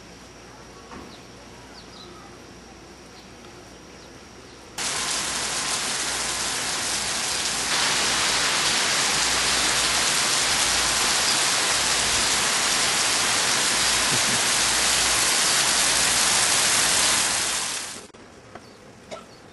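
Heavy rain: a dense, steady hiss of a downpour that starts suddenly about five seconds in after faint background, gets louder a few seconds later, and fades out near the end.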